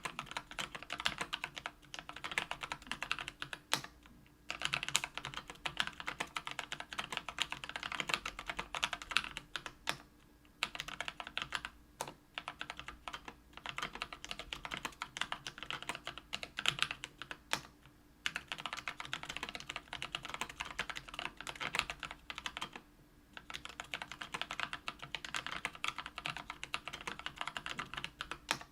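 Typing on a mechanical keyboard with Kailh Brown tactile switches lubed with Krytox 205g0, in an aluminium 65% case on an aluminium plate: fast runs of key clacks broken by short pauses every few seconds.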